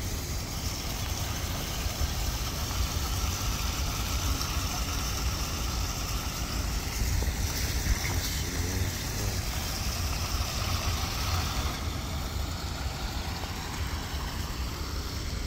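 Shallow creek water running over rocks, under a steady low rumble.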